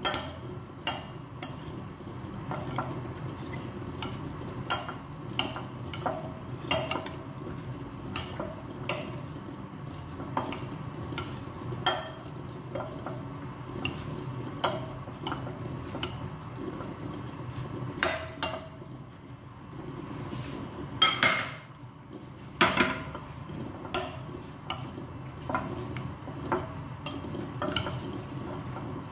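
Metal spoon stirring a chopped tomato, olive and onion mixture in a ceramic bowl, clinking against the bowl every half second to a second. One louder knock comes about two-thirds of the way through.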